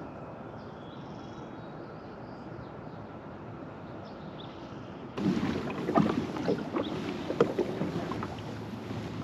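Quiet outdoor air with a few faint high bird chirps. About five seconds in it changes abruptly to louder water sloshing and splashing against a kayak hull, with scattered knocks.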